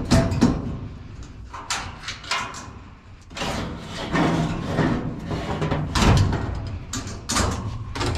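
Stainless steel kennel cage clanking and rattling as its spring-loaded latches are worked by hand and a wire-grate door and panel are swung open: a series of sharp metal knocks and clanks.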